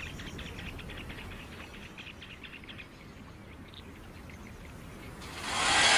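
Outdoor ambience with rapid, high-pitched chirping. About five seconds in, a loud rushing noise swells up.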